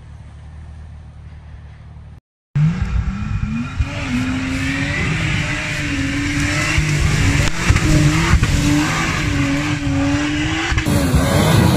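Off-road 4x4's engine: a low steady hum for about two seconds, then after a short break a loud engine revving hard under load, its pitch rising and falling, over a rushing noise.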